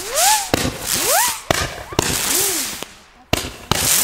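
Xplode Psycho Billy firework battery firing a string of shots: sharp bangs with hissing launches, several carrying a whistle that glides up and then down in pitch. There is a short lull near the three-second mark before the next bangs.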